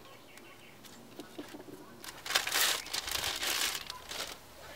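Rustling and crinkling as the cabin air filters are handled and swapped, old filter put aside and new one picked up, loudest from about two seconds in for about two seconds, with a few light clicks before it.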